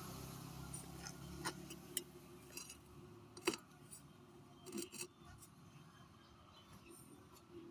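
Angle grinder winding down, its low hum fading over the first couple of seconds, then scattered light clicks and taps.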